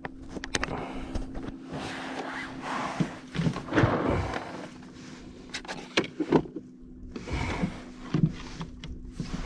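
Irregular knocks, thuds and rustling from handling on a small fishing boat, over a faint steady hum.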